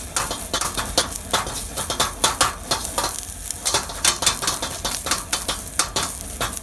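Stainless steel wok ladle scraping and clanking against a hand-hammered carbon steel wok in irregular strokes, a few a second, while onion fries with a steady sizzle in the smoking-hot oil.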